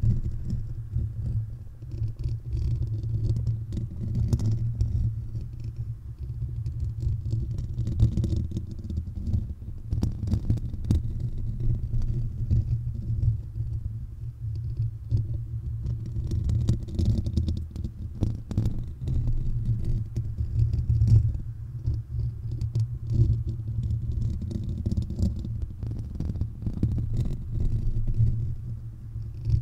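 Fingertips and nails scratching and rubbing on the metal mesh grille of a Blue Yeti microphone, heard up close as a continuous low rumble that swells and fades, with scattered sharper clicks.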